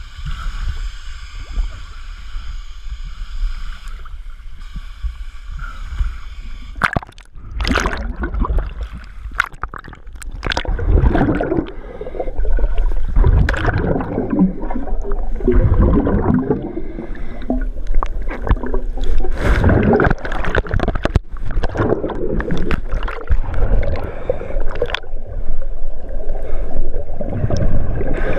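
Water gurgling and sloshing against a camera housing as it goes under water. Then, heard under water, scuba exhaust bubbles rush and gurgle in repeated surges every few seconds. For the first several seconds a steady hum is heard before the gurgling takes over.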